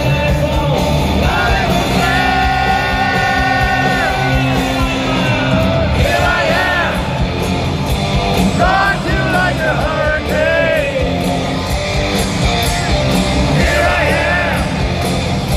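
Hard rock band playing live in an arena, with lead vocals over electric guitars, bass and drums, heard from within the crowd. A long held note sounds about two seconds in.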